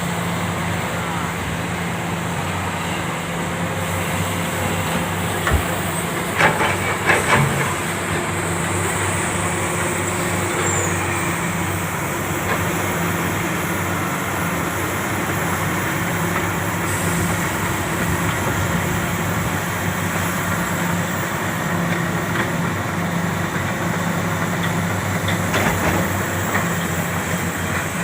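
Komatsu PC400 excavator's diesel engine running steadily under work. A few sharp knocks about six to seven seconds in, and again near the end.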